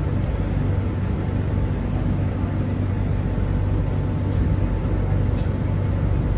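Steady interior rumble of an MTR C-train car, the motors and wheels on the rails, as the train slows to a stop at a station platform.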